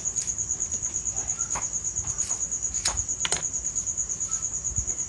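A cricket trilling steadily, one high note pulsing rapidly. A few faint clicks and rustles come from hands peeling the papery skin off a shallot, two of them a little before the middle.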